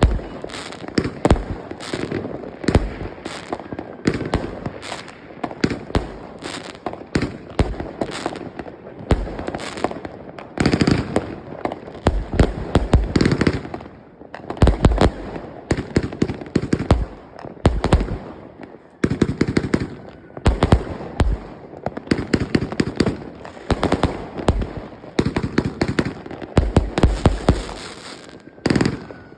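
Weco Rowdy palm-star fan battery (fireworks cake) firing: a rapid, irregular run of launch thumps and bangs in clusters, with a brief pause near the end before a few more shots.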